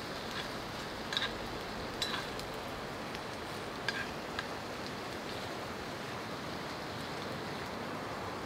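Kei-chan (marinated chicken) and cabbage sizzling in an iron frying pan: a steady hiss with a few small pops and spits.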